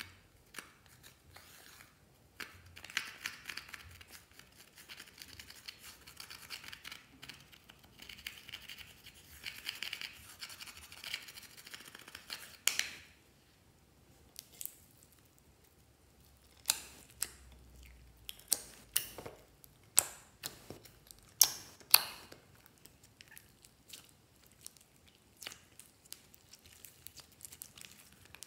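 Pressed eyeshadow being scraped and crumbled out of its compact with a small tool: a scratchy, gritty grating for about ten seconds. About halfway through it gives way to a string of separate sharp clicks and taps.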